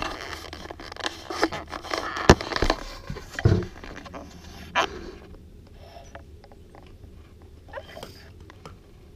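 Puppy eating dry kibble from a stainless steel bowl: crunching, with the bowl scraping and clinking on the vinyl floor. There is a thump about three and a half seconds in, and after about five seconds only a few faint clicks remain.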